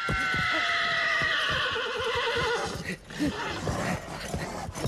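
A horse whinnies in one long, wavering call that slowly falls in pitch over about three seconds while it bucks under a rider, its hooves thudding on the ground. More hoof thuds and scuffling follow after the call ends.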